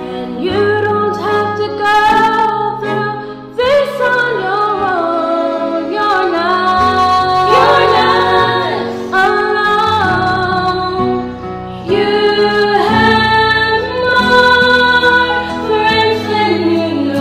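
One woman singing a slow song in four-part harmony with herself, her voice multitracked so the parts sound together.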